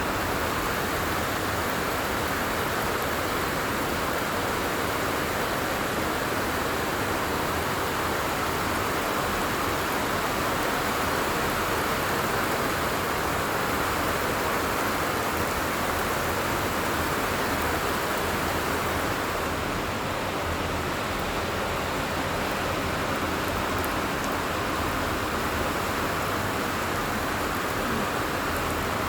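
Light rain falling steadily, an even hiss with no thunder heard.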